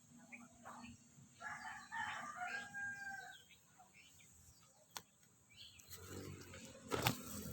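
A bird calls a few times, with held, pitched notes about two seconds in. Near the end come rustling and a sharp knock, which is the loudest moment.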